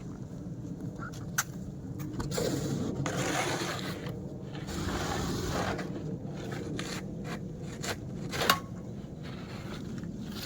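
Snow being scraped off during snow clearing, in two long scraping passes, with a sharp click early on and a louder knock near the end.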